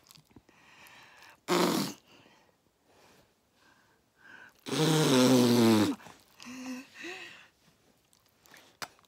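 Fart noises blown with the lips: a short noisy one about a second and a half in, then a longer, louder buzzing raspberry in the middle.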